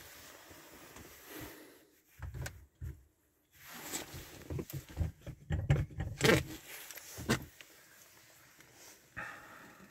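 Irregular knocks, low thumps and scraping rustles inside a small car cabin with the engine off, heaviest in the middle seconds.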